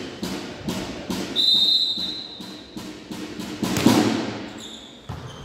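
Referee's whistle blowing one steady, high note for about a second and a half, starting about a second and a half in, which signals the serve. Around it are echoing thuds and voices in the sports hall, and a shorter, fainter whistle-like note comes near the end.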